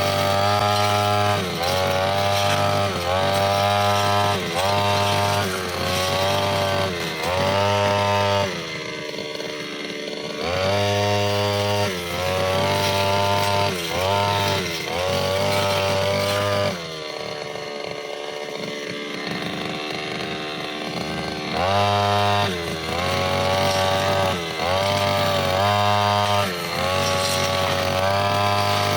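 Brushcutter fitted with a metal blade, its engine revving up and down in quick throttle bursts about once a second as it cuts through mixed grass and small saplings. Twice it drops back to a lower idle, once for about two seconds and once for about four.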